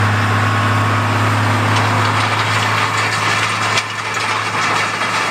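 A motor running steadily with a deep, even hum under a loud hiss, dipping slightly about four seconds in and cutting off abruptly at the end.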